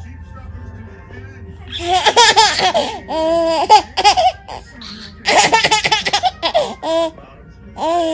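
A baby laughing in three or four bouts of high, pulsing belly laughs, with short pauses between them. The first two seconds are quieter before the laughing starts up.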